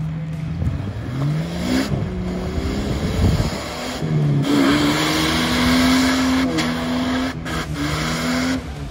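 Jeep Wrangler engine revving under load on a muddy trail. It climbs in pitch about a second in, then holds at high revs for several seconds under a loud rushing noise.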